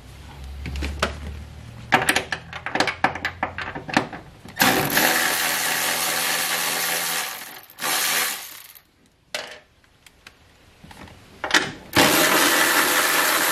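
Rear-seat bolts being worked loose: a run of quick clicks and knocks, then three bursts of a whirring power tool, the first lasting nearly three seconds.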